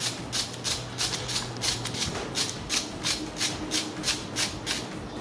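Ratchet wrench with a 13 mm socket clicking in short, even strokes, about three a second, as it unscrews the bolts holding a secondary air injection check valve to the engine block.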